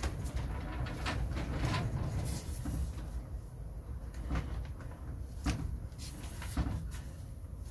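Hands pressing and patting loose compost flat in a polystyrene seed tray, firming it over freshly sown seeds: soft rubbing with several light knocks spread through.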